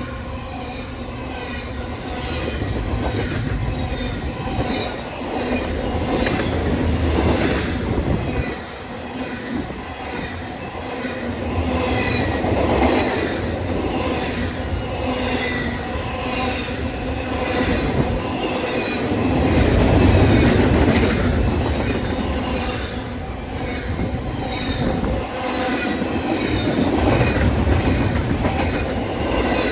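Train cars rolling past on the main line, wheels clicking in a steady rhythm over the rail joints, with some wheel squeal.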